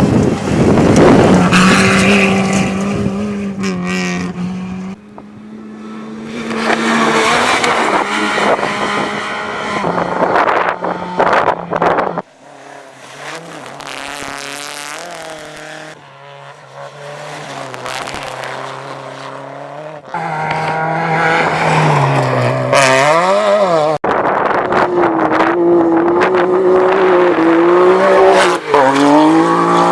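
Rally cars at speed, engines revving hard and rising and falling in pitch through gear changes and lifts as they pass, in a series of abrupt cuts. Quieter in the middle, loud again for the last third.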